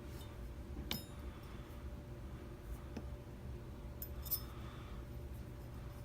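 A few light metallic clicks of a pick and tension wrench working the pins of a Kale 10-pin dimple lock, the sharpest about a second in and a little past four seconds, over a low steady hum.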